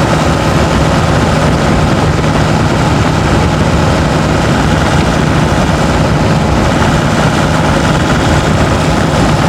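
Turbocharged diesel pickup's engine running steadily under load, a steady low drone with a fainter higher whine over road and wind noise.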